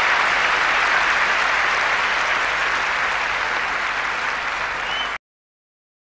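Audience applauding steadily, cut off abruptly about five seconds in.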